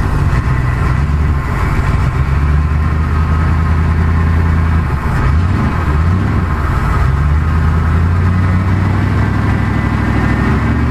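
Triumph Stag's 3.0-litre V8, freshly overhauled, idling steadily. About five to six seconds in, the engine speed dips and rises briefly as the throttle linkage on top of the engine is worked by hand.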